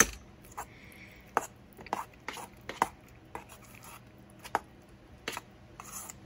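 Spoon knocking against the side of a mixing bowl while stirring almond cream cheese and almond butter together: a string of short, irregular taps, roughly two a second.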